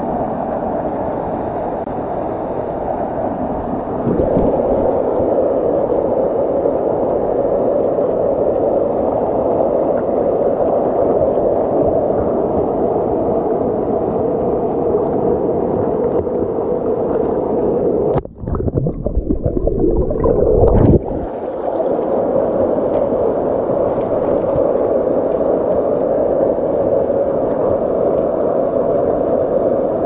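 Waterfall rushing over rocks, a steady loud wash of water noise. A little past halfway it gives way for about three seconds to a low rumbling on the microphone, then the rushing comes back.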